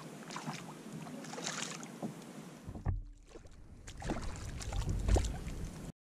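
Water splashing and lapping beside a kayak as a hooked fish thrashes at the surface, with wind buffeting the microphone. The sound cuts off suddenly near the end.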